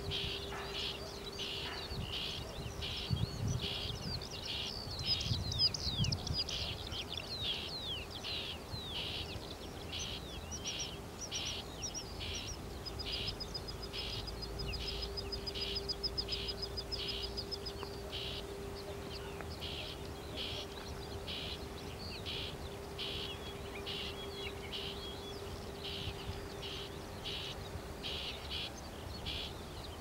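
Small songbirds calling: a steady run of short high chirps, one or two a second, with a fast high trill for several seconds in the middle. A steady low hum runs underneath.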